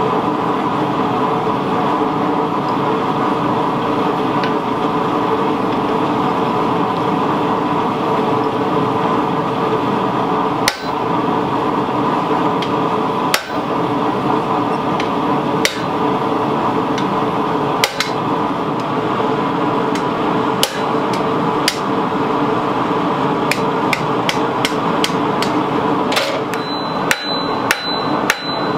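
Blacksmith's hand hammer striking hot 52100 carbon steel on an anvil. The blows are spaced a few seconds apart from about ten seconds in and come quicker near the end, where the last few ring. A steady drone runs underneath.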